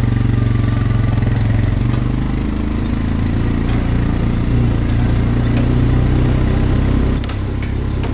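Engine of the motor vehicle towing a roping-dummy sled, running steadily as it drives across the arena, with a slight drop in level about seven seconds in.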